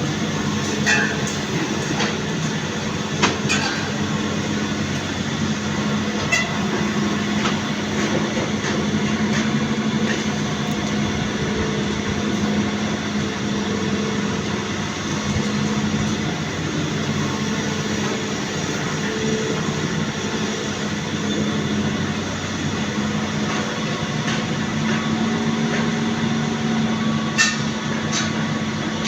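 Excavator running steadily, with a few short sharp clanks.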